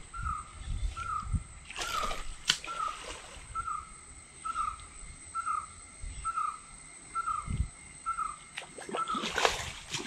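An outdoor animal call: a short note repeated evenly about one and a half times a second, over a thin steady high drone. A few rustling knocks break in about two seconds in and again near the end.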